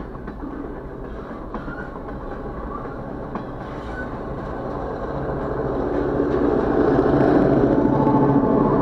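Slow freight train of covered hopper cars rolling past, wheels clicking irregularly over the rail joints with a couple of brief squeals. Over the second half a diesel locomotive's engine note grows steadily louder as it draws near.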